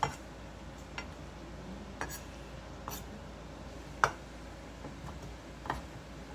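Shun chef's knife cutting kimchi on a wooden cutting board: separate sharp knocks of the blade meeting the board, about one a second, the loudest about four seconds in.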